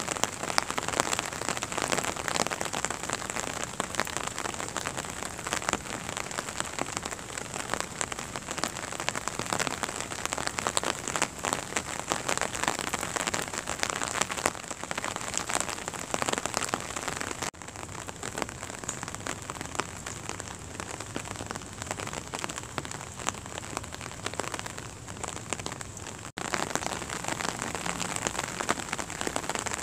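Steady rain falling on wet paving stones and tree leaves, a dense hiss full of separate drop hits. It turns softer about two-thirds of the way through and comes back louder near the end.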